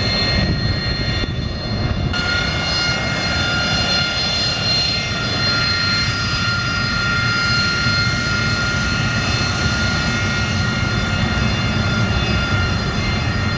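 Jet aircraft engine running with a steady high whine over a low rumble; the whine grows stronger and brighter about two seconds in.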